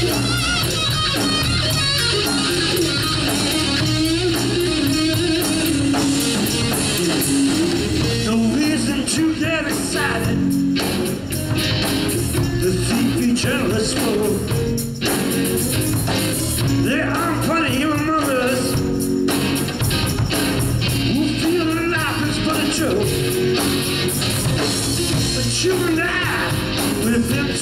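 Live rock band playing at full volume: electric guitar lines over drums and bass guitar, with a steady driving beat.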